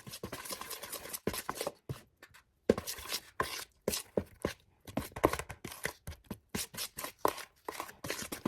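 Measuring teaspoon scraping and tapping against a container and a mixing bowl as baking powder is scooped, levelled off and tipped in: a run of short, irregular clicks and knocks.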